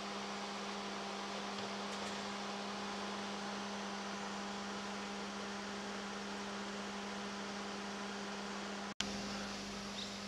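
A steady low hum over a hiss. The sound cuts out for an instant about nine seconds in, then the hum carries on.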